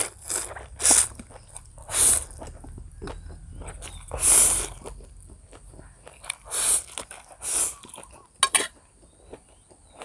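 A person eating instant noodles close to the microphone: chewing and biting, broken by several short, loud, hissy mouth noises at uneven gaps of about one to two seconds.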